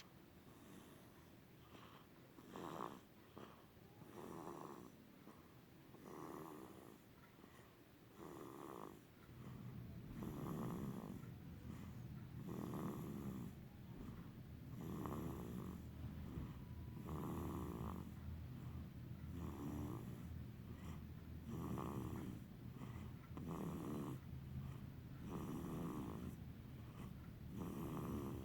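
Snoring: a slow, even rhythm of snores, about one every two seconds, growing louder about nine seconds in.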